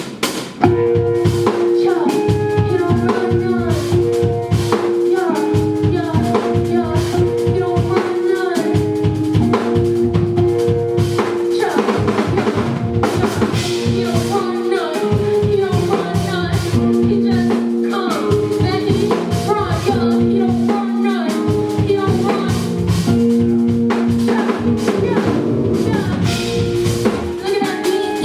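Instrumental music with a drum kit beat, held chords and a melodic line over them, starting sharply just under a second in.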